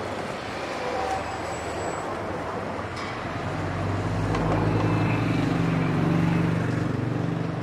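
Street traffic noise with a motor vehicle engine running close by: a low, steady hum that swells about four seconds in and eases near the end. A few light clicks.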